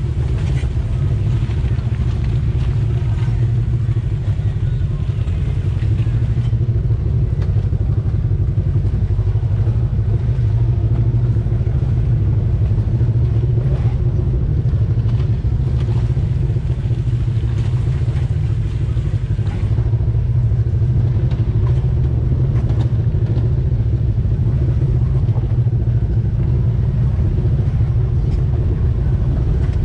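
Polaris RZR side-by-side's engine running at a steady pace as it drives along a dirt trail, a low, even drone heard from the cab with a few faint knocks.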